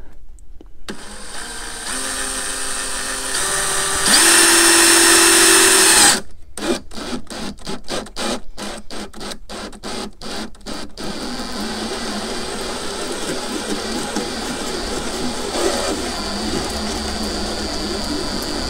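A DeWalt cordless drill turning a step bit through the sidewall of a plastic storage tote to cut a 3/4-inch hole. The motor whine steps up in speed a few times and is loudest and highest for about two seconds, around four seconds in. It then cuts in and out in short pulses about twice a second for several seconds, then runs steadily again.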